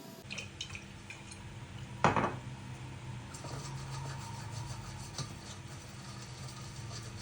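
Kitchenware being handled: light clinks and taps, with one loud knock of a dish or utensil about two seconds in, over a low steady hum.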